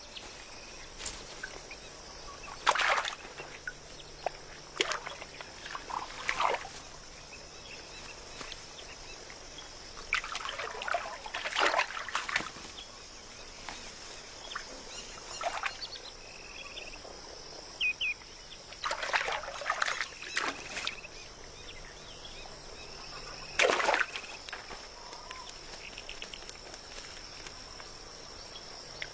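Shallow water splashing and sloshing in short irregular bursts as wading birds move and strike at fish, over a steady high hiss of natural ambience, with a few short bird chirps.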